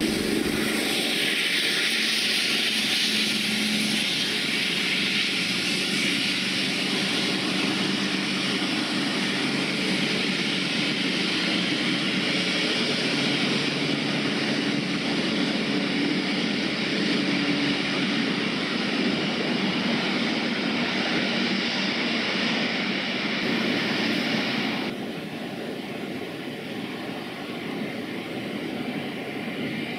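Railhead treatment train approaching: diesel locomotive engine running steadily under a loud, constant high hiss. About 25 seconds in it cuts suddenly to quieter diesel running from a distant approaching Class 66 freight locomotive, growing a little louder near the end.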